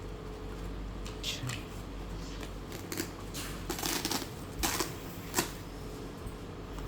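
Packaging rustling and crinkling in a series of short bursts, with a few sharp clicks, as drone kit parts are handled and taken out of the box.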